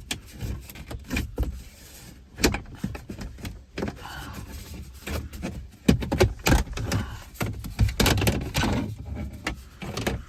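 Plastic dashboard trim of a 2012 Toyota Camry being pried and pulled loose by hand: an uneven run of sharp clicks, knocks and rattles from the clock-and-bezel panel and its clips, with scraping handling noise between them, busiest in the second half.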